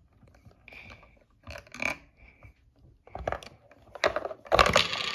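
Play-Doh hair salon playset worked by hand, the figure pressed down into its plastic chair to push clay hair out through the head: scattered plastic clicks and knocks, then a louder rasping noise about four and a half seconds in.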